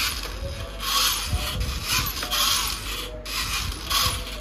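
Small electric gear motors of a homemade RC toy tractor whirring in several short bursts, with a brief break about three seconds in.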